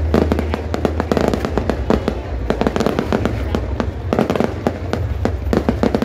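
Aerial fireworks bursting overhead: a rapid, irregular run of sharp bangs and crackles, many each second, over a steady low rumble.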